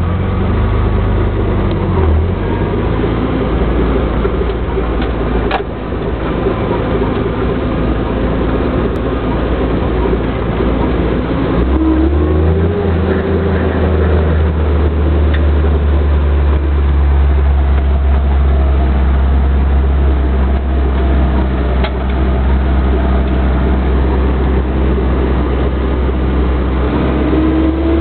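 GAZ-69's four-cylinder side-valve petrol engine running steadily as the jeep drives along a dirt track. The engine note shifts about twelve seconds in and rises again near the end.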